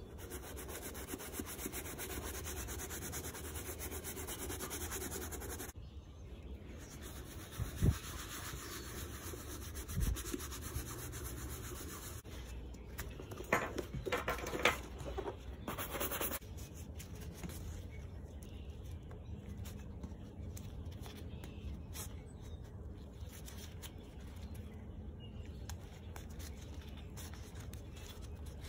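Gloved fingers rubbing over the grain leather of a vintage Coach handbag, a steady soft rubbing for about the first six seconds. Two knocks follow as the bag is handled, then a run of quick horsehair-brush strokes across the leather, and quieter handling after that.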